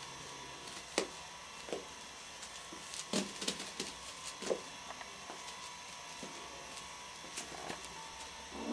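Kittens scampering and wrestling on a plastic sheet over carpet: scattered light taps and rustles, with a quick cluster of them about three seconds in.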